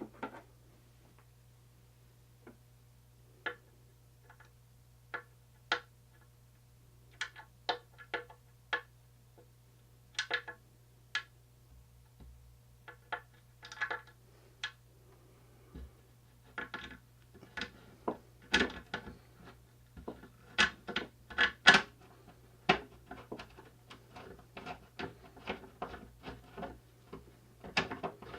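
Scattered clicks, clinks and light knocks of tools and metal hardware being handled, sparse at first and coming faster and louder in the second half, over a steady low hum.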